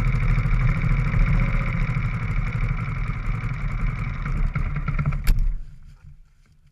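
Dirt bike engine idling steadily close by. About five seconds in there is a sharp click, and then the engine sound cuts off, leaving it faint for the last second.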